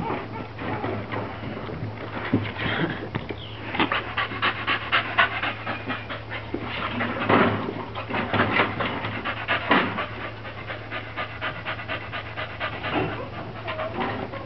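Staffordshire bull terrier panting in quick, rhythmic breaths.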